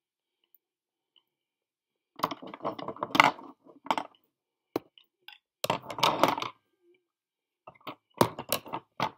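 Wooden tobacco pipes being handled and set down: several bursts of clacking and clinking knocks, with single clicks in between.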